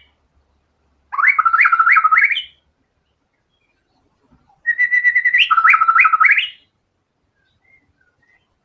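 White-rumped shama singing: two loud phrases of quick, repeated whistled notes that each flick upward, a few seconds apart, then a few faint short notes near the end.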